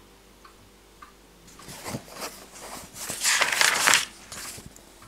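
Pages of a large paperback book being leafed through by hand: paper rustling and sliding that starts about a second and a half in and is loudest around three to four seconds in.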